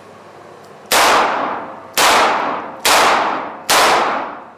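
Four shots from a Korth Sky Marshal 9 mm Luger revolver, a little under a second apart, each ringing out in the echo of an indoor range.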